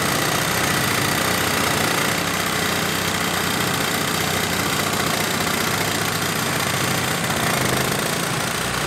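KIMO 20V cordless reciprocating saw cutting through a 4x4 of lumber at full speed, the motor running without a break and the blade strokes making a fast, even rasp as it saws through the wood.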